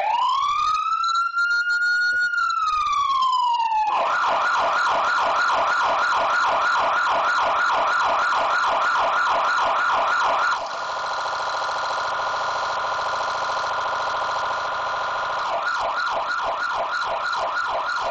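Fire truck's electronic siren run through its tones. It starts with a slow wail rising and falling, switches to a fast yelp about four seconds in, changes to a steadier, rapidly warbling tone partway through, and returns to the yelp near the end.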